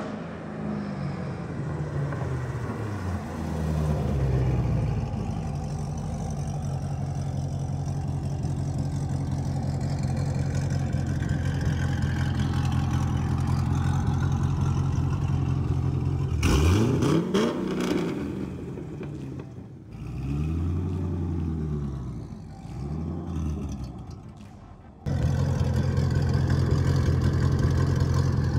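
C6 Corvette's V8 exhaust: the car comes up the street with the engine note dropping as it slows, then rolls along at a low, steady idle. Past the middle the throttle is blipped, then revved twice with the pitch rising and falling, and near the end the idle is suddenly much louder, close behind the quad tailpipes.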